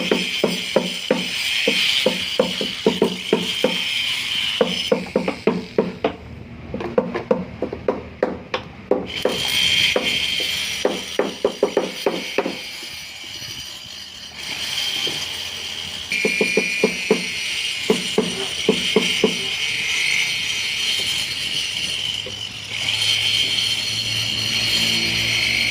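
Background music with a fast, clicking percussion beat, over the steady high whine of a rotary die grinder porting a cylinder head. The whine stops for a few seconds about five seconds in, then comes back, shifting in pitch later on.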